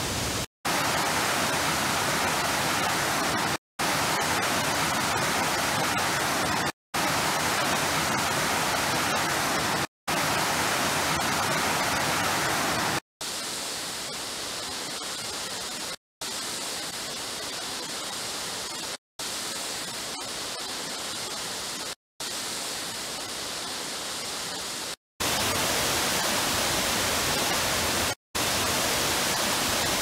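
Waterfalls rushing: a steady hiss of falling water, broken by brief silences about every three seconds where short clips join. The rush is quieter and thinner through the middle, then fuller and brighter again near the end.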